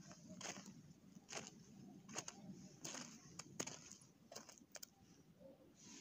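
Faint, irregular rustling and crackling, a short burst every half second to a second.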